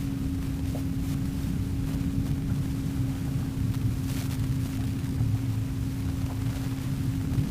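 Boat's outboard motor running at a steady pitch, with wind rumbling on the microphone.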